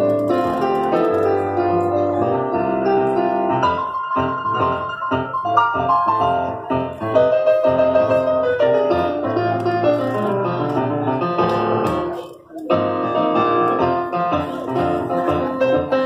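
Korg digital stage piano played solo with a piano sound, amplified: a busy flow of chords and melody lines, with a brief break about twelve seconds in before the playing resumes.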